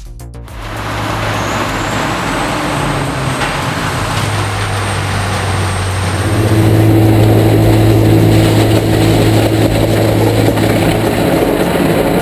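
Heavy industrial shredding or grinding machine running under load: a loud, steady churning noise over a low engine drone, which grows louder and deeper-toned about six seconds in.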